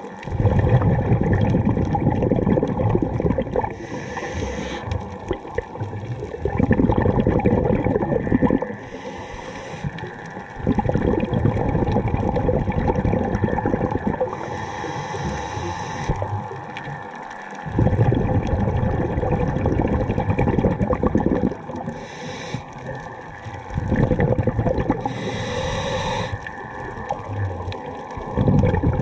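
Scuba diver breathing through a regulator, heard underwater. About five long bubbling exhalations of a few seconds each alternate with a short hiss of inhaled air.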